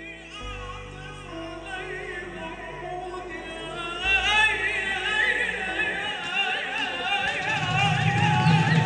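A man singing solo through a microphone in a highly ornamented, wavering melodic line, held over low steady backing tones and growing louder.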